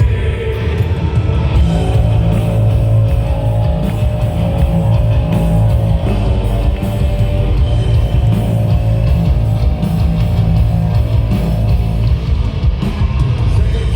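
Live band playing a loud instrumental passage of a heavy rock song, with electric guitars over drums and bass.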